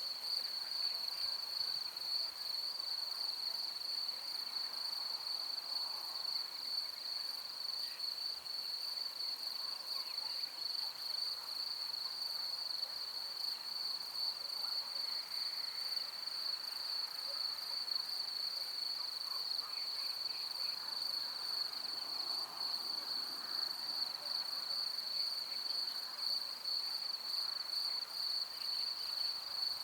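A chorus of crickets chirring without a break: one steady, high-pitched tone, with faint, soft background sounds beneath it.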